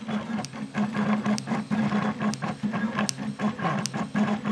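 Prusa i3 clone 3D printer running a print: its stepper motors whine as they drive the print head, the pitch jumping to a new note at each change of direction, with quick clicks between moves.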